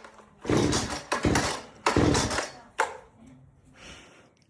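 Three quick pulls on a gas chainsaw's starter cord, each a short rasping rip, with the engine not catching, then a click.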